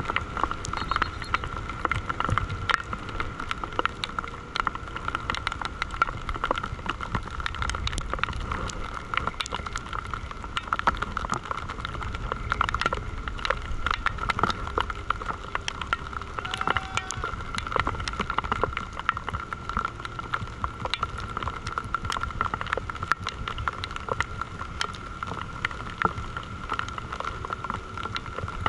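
Wind buffeting the microphone of a camera on a flying parasail: a steady low rumble full of rapid crackles and pops, with a steady high whine underneath.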